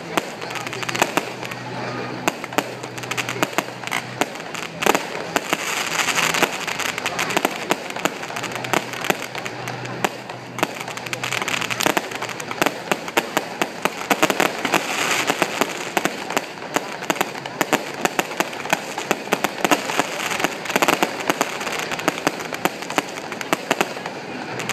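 Aerial fireworks display: a continuous barrage of sharp bangs and pops, many a second with no let-up.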